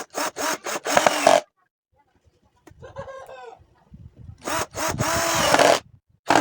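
Saw cutting wood: a quick run of short rasping strokes, then one longer cut a few seconds later.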